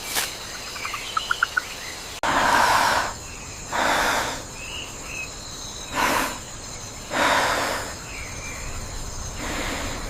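Animated jungle ambience: a steady insect-like hiss with short bird chirps now and then. A quick run of small ticks comes about a second in, and four soft whooshing swells of about a second each come and go.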